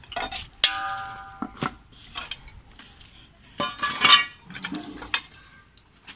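Metal clanking from a hand-held balance scale as its metal pans and weights knock together. One knock early on rings on for nearly a second, and a cluster of clinks comes about four seconds in.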